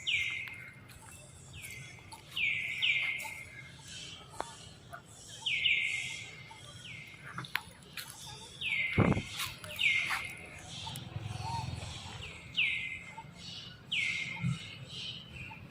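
High, short chirping calls, each falling sharply in pitch, coming in pairs and threes every couple of seconds; a single dull thump about halfway through.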